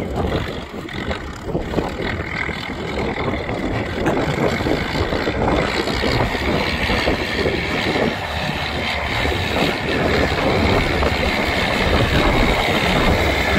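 Diesel farm tractors, an IMT 558 and an IMR 65, running steadily under load as they work a tilled field. The sound grows gradually louder as the nearer tractor comes toward the microphone.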